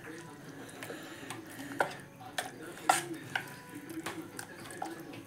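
Steel spoon stirring grated cucumber into thick batter in a steel bowl, with irregular sharp clinks of the spoon against the bowl.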